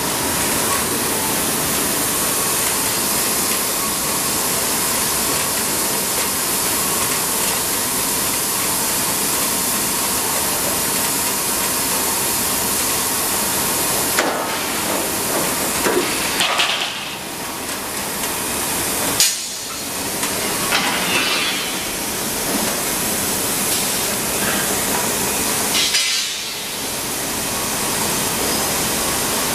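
Steel-bar straightening and peeling line running: a steady, loud machine noise with a hiss and a faint steady hum. In the second half come several sharp metallic knocks as bar moves through the rolls.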